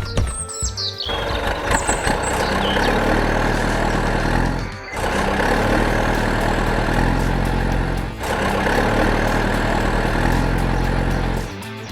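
A heavy vehicle's engine running steadily. It comes in about a second in, after a short falling whistle, and drops out briefly twice.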